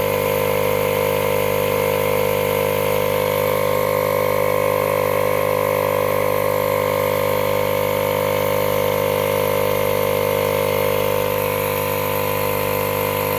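Milwaukee cordless battery-powered air compressor running steadily with a loud, even motor-and-pump drone, inflating a flat mower tire toward its preset pressure of about 20 to 25 psi.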